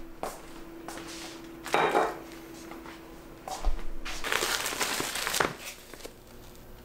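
Plastic food packaging crinkling as a wrapped meat tray is handled, in a short burst about two seconds in and a longer one from about four seconds, with a few light knocks of things set down on the countertop.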